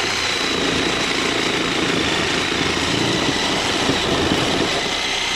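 Reciprocating saw with a Diablo blade running steadily as it cuts into an AC condenser unit. The workpiece is vibrating, so the blade is not getting full strokes and cuts poorly.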